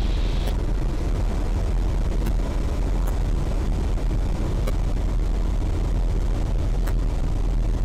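Steady drone of a Eurofox light aircraft's engine, propeller and airflow, heard through the cockpit intercom during an approach with full flap and a sideslip. A few faint short clicks sound over it.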